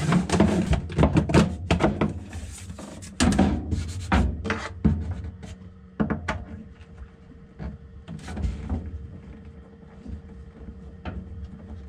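Wooden knocks and clatter as sliding cabinet doors and their wooden track in a sailboat galley are handled and worked loose by hand. The knocks are dense for the first five seconds and sparser after, over a steady low hum.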